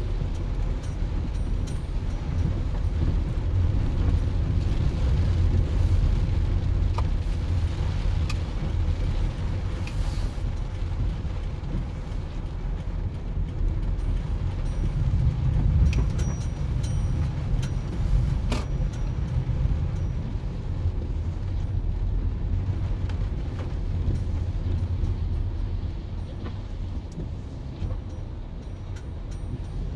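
Car driving on a wet road, heard from inside the cabin: a steady low rumble of engine and tyres, with a few sharp taps scattered through it.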